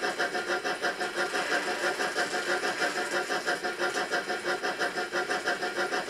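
N gauge model steam locomotive, a tender-driven LMS Jubilee, running along the track with its train. It makes a steady mechanical whirr with an even pulse of about five beats a second.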